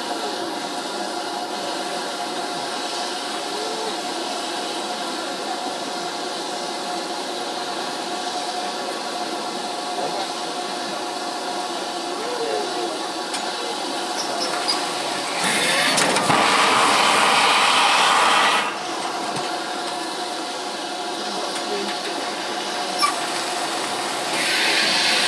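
Running noise of a steam-hauled railway carriage in motion, a steady sound of wheels on rails with a few brief wheel squeals. A louder rushing noise comes in for about three seconds past the middle, and again near the end.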